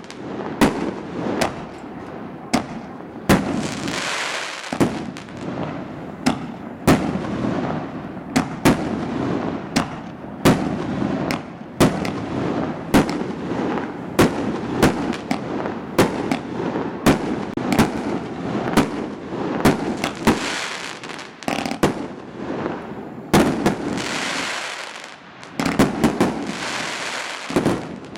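An aerial fireworks display: shells bursting in quick succession, sharp bangs about once or twice a second, with a continuous crackling hiss between them that swells for a couple of seconds at times.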